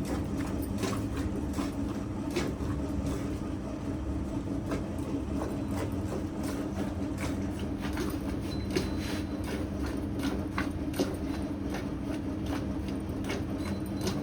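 Milking sounds: a steady low hum runs under a quick, irregular patter of short clicks and squirts.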